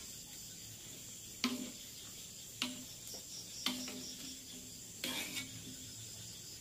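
Metal ladle knocking and scraping against a metal wok while stirring chicken in sauce, about five clanks roughly a second apart, each leaving a short ring. Crickets chirp steadily in the background.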